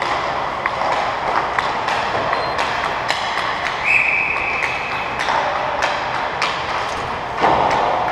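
Ice hockey rink sounds: skates hissing over the ice, with sticks and pucks clacking at scattered moments. A brief steady high tone sounds about four seconds in, and a louder swish of noise comes near the end.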